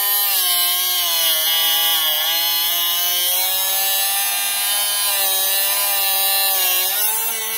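Drill Doctor 750X drill-bit sharpener running with a drill bit pushed against its grinding wheel to grind the split point. The motor's pitch wavers and dips under the load over a steady grinding hiss, then eases off near the end.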